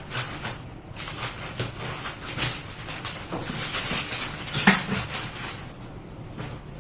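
Irregular small clicks, taps and rustles of hands handling tools and parts on a repair bench, with one sharper knock about two-thirds of the way through.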